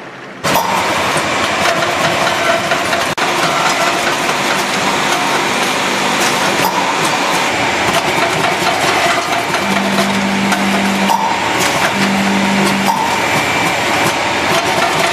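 Premade-pouch filling and sealing machine running: a loud, steady mechanical clatter with many sharp clicks and knocks from its moving parts, starting abruptly about half a second in. A low buzzing hum comes in twice in the second half.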